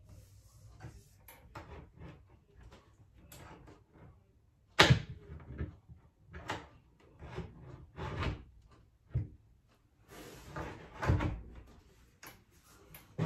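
Wall cabinet door being fitted onto its metal hinges: a string of clicks, knocks and rattles as the door is handled against the cabinet, with one sharp knock about five seconds in.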